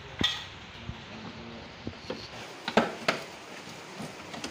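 Scattered sharp knocks and clinks of tools and parts being handled, the loudest two close together near the end, over a low steady background hum.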